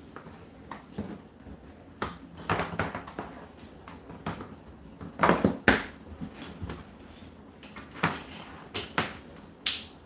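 Indesit IDC8T3 condenser tumble dryer running, its drum tumbling a load of laundry: irregular knocks and thuds as the clothes drop inside, over a low steady hum.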